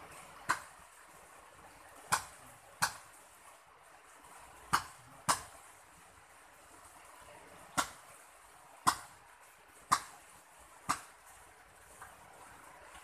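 Rainwater dripping onto a hard surface: single sharp drip taps about once a second at uneven spacing, over a faint steady hiss.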